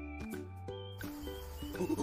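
Light background music: short held notes stepping in pitch over a steady bass. About halfway through, the notes thin out and a faint hiss of outdoor ambience comes in.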